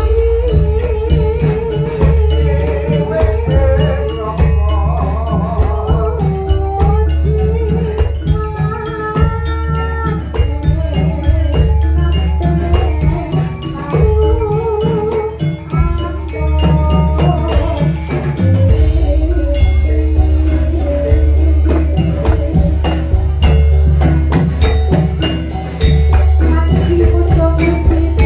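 Live Javanese jathilan (kuda lumping) accompaniment music: dense drumming and struck percussion under a wavering, vibrato melodic line and held higher notes, with deep sustained bass notes that come and go.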